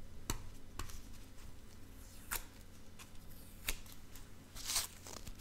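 Gloved hands handling a clear plastic coin capsule: a few sharp, separate clicks, with a short scraping rustle near the end.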